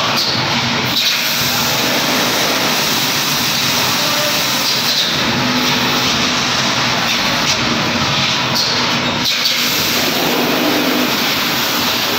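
Industrial peanut air blancher running: a steady, loud machine noise with an even rush of air and a faint hum.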